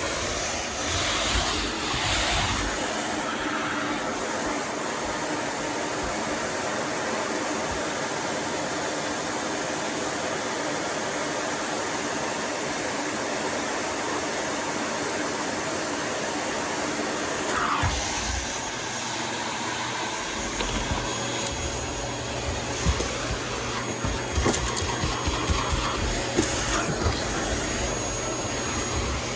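Vacuum cleaner running steadily, with scattered clicks and knocks in the later part as things hit the nozzle.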